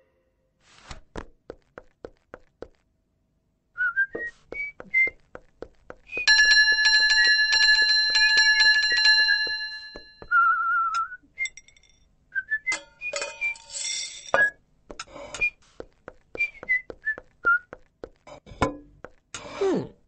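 Cartoon sound effects: a bell struck once about six seconds in, ringing for about four seconds as it fades. Around it are short whistled chirps and a warbling trill, taken for the parrot, among light taps and clicks.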